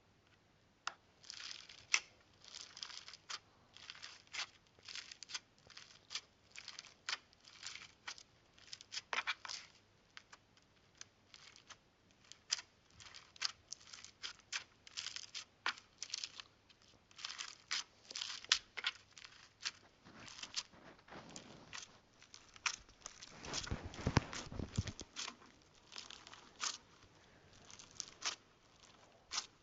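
Slime being squeezed and stretched by hand, making irregular sticky crackles and pops. About three quarters of the way through there is a longer, louder squelch.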